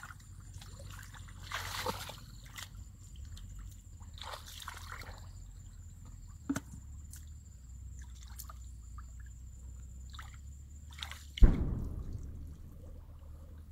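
Shallow muddy water sloshing and splashing irregularly as a person wades barefoot and feels about in it by hand, with a sharp click about halfway through and a loud heavy thump near the end.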